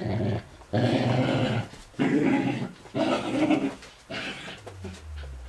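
Whippet play-growling over a soft toy: a run of four or five growls, each up to about a second long with short breaks between, the last one short and weaker.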